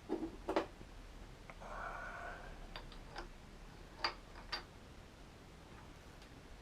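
Light clicks and taps of small metal parts being handled while a part is fitted onto a motorcycle's front fork, about six in all, with a brief rustle about two seconds in.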